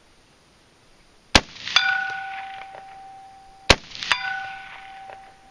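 Two 5.56 mm AR-15 rifle shots a little over two seconds apart, each followed a split second later by the ringing clang of the bullet hitting a steel pipe target downrange, a clear tone that slowly fades.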